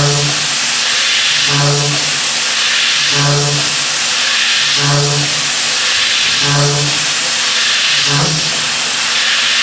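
Milling machine running a high-feed milling cutter. Under a steady, loud hiss, a short pitched buzz comes back six times, about every 1.6 seconds.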